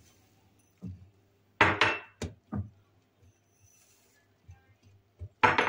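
A few short knocks and clinks of glassware on a kitchen counter, the loudest a quick pair about two seconds in, with quiet stretches and a low steady hum between them. A louder noise starts just before the end.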